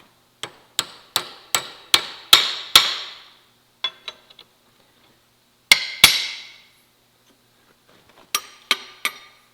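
Hammer striking steel with ringing blows: a steady run of about seven strikes, a few light taps, two heavy blows about six seconds in, and three more near the end, straightening a bent steel hook.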